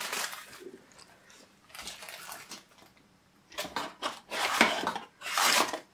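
Paper and thin cardboard rustling and scraping as a folded manual is slid out of a small cardboard box, in irregular bursts that grow louder in the second half.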